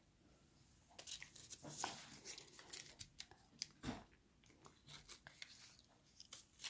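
A sheet of origami paper crinkling and crackling faintly as fingers fold and crease it: a run of small, irregular rustles and clicks starting about a second in.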